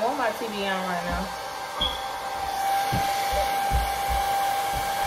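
Handheld hair dryer running steadily, a constant rush of air with a steady whine, with a few short low thumps through it.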